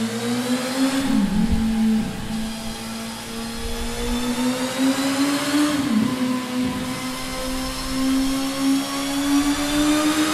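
Suzuki GSX-S1000 Katana's inline-four running through its stock exhaust, held at high revs. It eases off briefly about a second in and again near six seconds, then the revs climb slowly toward the end.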